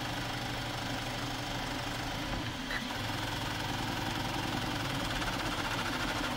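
AnkerMake M5C 3D printer running a print: steady mechanical whirring and buzzing of its motors as the print head moves.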